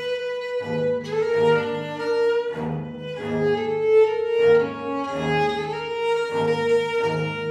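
Violin and viola da gamba playing together. The violin holds long, sliding higher notes while the viola da gamba bows lower notes in short repeated strokes beneath it.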